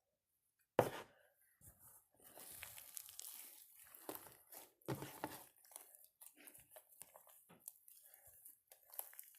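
Homemade slime being kneaded and stretched by hand as coconut oil is worked in to soften it: faint, irregular sticky crackles and squelches, with one sharp click about a second in.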